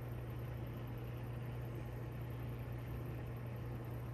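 Small electric motor running with a steady low hum and a faint hiss.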